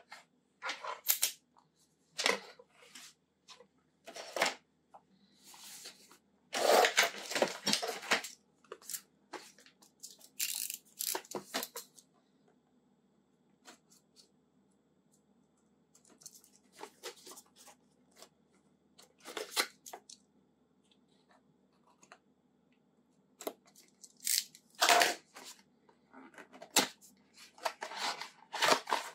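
Packaging being torn and handled during a phone unboxing: a series of short tearing and rustling noises with small handling clicks in between, the longest and loudest tearing about seven seconds in.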